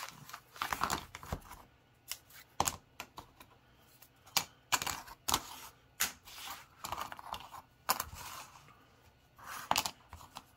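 Thin wooden panels with finger-joint tabs clattering as they are set down, shuffled and slid across a cutting mat: irregular sharp clicks and knocks with short scrapes between them.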